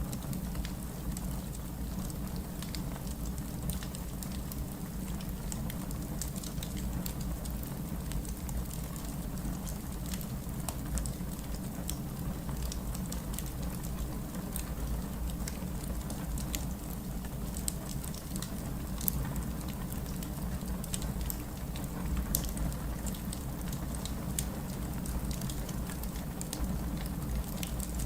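Fireplace ambience: a wood fire crackling with frequent small irregular pops over a steady low rumble.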